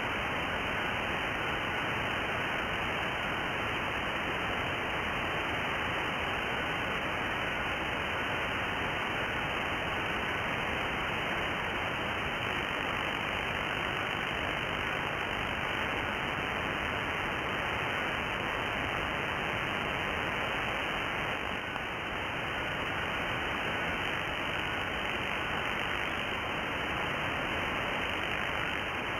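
Steady hiss of band noise from a 2 m single-sideband receiver in USB mode, cut off above about 3 kHz by the receiver's filter. A faint FT4 digital signal, reflected off an airliner by aircraft scatter, sits near 1.4 kHz under the hiss.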